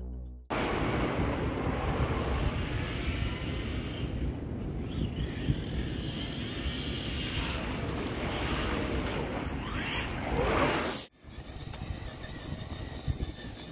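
Wind rushing over the microphone with the electric motor whine of a Traxxas TRX-4 Sport RC crawler, the whine gliding in pitch and loudest about ten seconds in. After a sudden cut, a quieter stretch of small ticks and crunches from the crawler's tyres on sandy ground.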